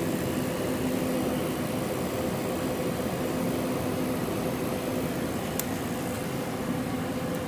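A steady mechanical hum with a low drone, unchanging throughout, and a single faint tick about five and a half seconds in.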